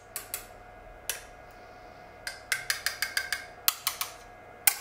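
Sharp metallic clicks and taps, about a dozen in irregular clusters with the loudest near the end, as a hand handles the bolts and metal frame of an electric unicycle's suspension.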